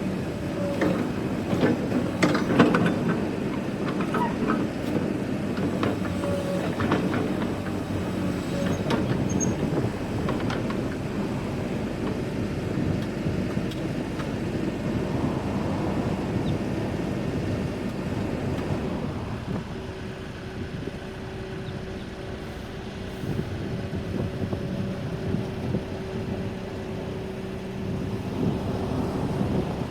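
Case 580N EP backhoe loader's diesel engine running steadily, with a cluster of sharp metallic clanks and knocks over the first ten seconds. A steady whine comes in about twenty seconds in and holds.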